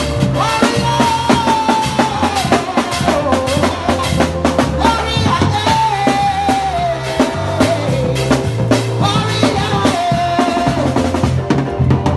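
A woman singing a slow, held melody through a microphone and PA over a live band of drum kit, bass guitar and keyboard, with steady drum hits and a bass line underneath.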